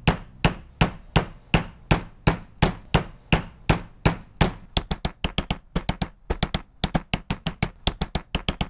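A plastic mallet tapping a phenolic coupler block down onto the drive gear pins of a supercharger nose cone to seat it. It is a steady run of sharp taps, about three a second, that speeds up to about five a second a little past halfway.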